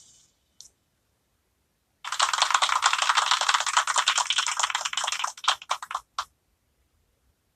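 A rapid, dense clatter of clicks lasting about four seconds, starting about two seconds in and stopping suddenly.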